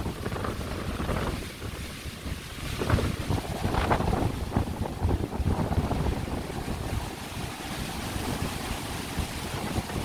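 Storm-force wind gusting, with a low rumble of wind buffeting the microphone. It eases a little about two seconds in, then builds again.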